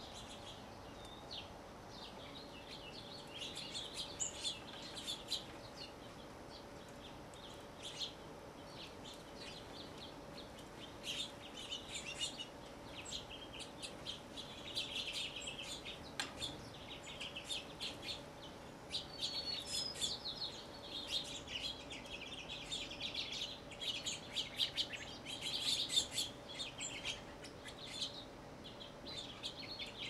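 Small backyard songbirds chirping: a busy run of short, rapid chirps that come in clusters, loudest a few seconds before the end.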